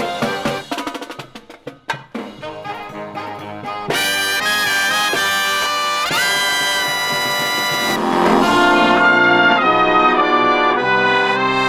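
Live marching band playing: sharp snare-drum strokes for the first couple of seconds, then the brass section of trumpets and trombones comes in about four seconds in with loud held chords, growing louder about eight seconds in.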